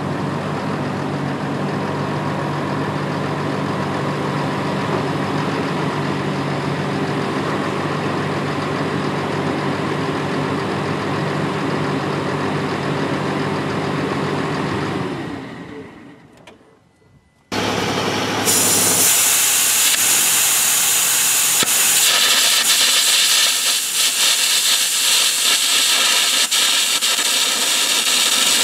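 Caterpillar D6N dozer's diesel engine running steadily, fading out a little past halfway. Then, about a second later, air carbon arc gouging with a 1/4-inch carbon rod at 240 amps: a loud, steady hiss of the arc and air blast cutting out a crack in steel.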